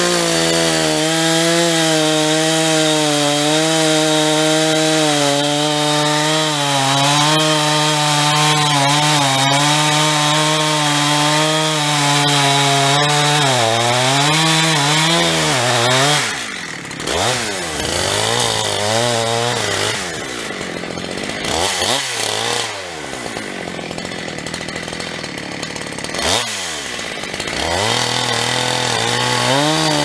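Huztl 372, a Husqvarna 372XP-clone two-stroke chainsaw built with a 52 mm big-bore cylinder, running at high revs while cutting into the base of a large tree trunk, its pitch steady with a slight waver. About halfway the engine speed swings up and down and the sound drops in level, then it settles back into a steady cut near the end.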